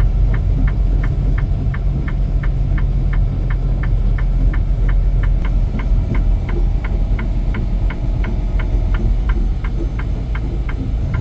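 Heavy truck's engine and road rumble inside the cab at low speed on a snowy road, with a steady rapid ticking about three times a second.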